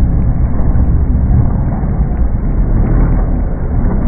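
Trophy truck's V8 engine running flat out as the truck goes over a jump, a loud, steady, low-heavy noise with no clear pitch changes.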